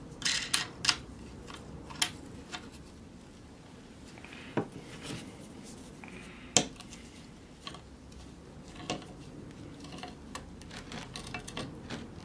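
Small steel parts clinking as a nut and washers are fitted and turned by hand onto a bolt: a handful of sharp metallic clicks one to two seconds apart, with a quick run of small ticks near the end.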